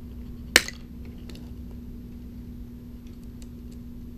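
The plastic clamshell handle of a Bernzomatic TS3000 torch snapping open under a pry tool with one sharp crack about half a second in, followed by a few faint clicks as the loosened plastic halves are handled.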